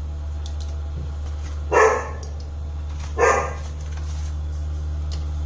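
A dog barking twice, about a second and a half apart, over a steady low hum.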